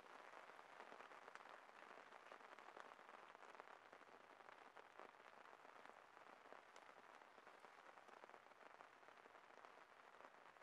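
Small wood campfire crackling quietly, with a dense run of tiny snaps and pops.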